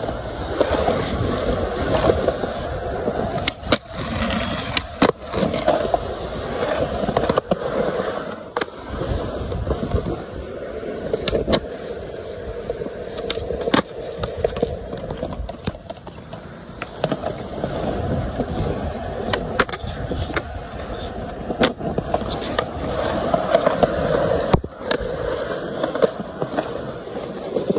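Skateboard wheels rolling on concrete, with sharp clacks from the board now and then as it is popped, tapped and lands.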